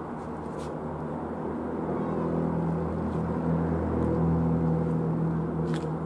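Van's RV-7A single piston-engine light aircraft flying overhead: a steady engine and propeller drone that grows louder toward the middle and eases slightly near the end.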